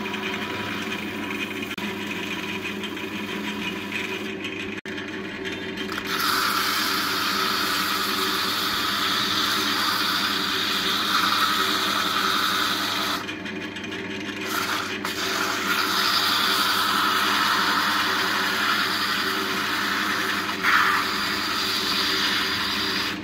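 Wood lathe motor humming steadily as a wooden vase spins. In the first few seconds a hollowing tool cuts inside the vase's mouth. From about six seconds in, sandpaper is held against the inside of the spinning opening, making a loud, rough, steady hiss that drops out briefly about halfway through and then resumes.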